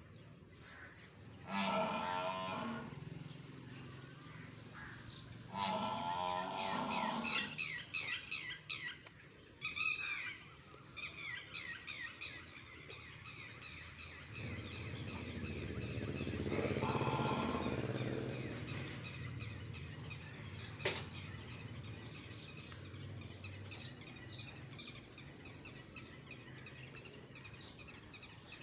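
Cattle mooing: calls about two and six seconds in, then one long low moo around the middle. Birds chirp in the background through the second half.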